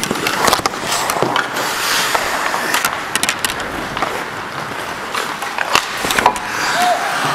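Ice hockey skates carving and scraping on the ice close to the microphone, with scattered sharp clacks of sticks and puck.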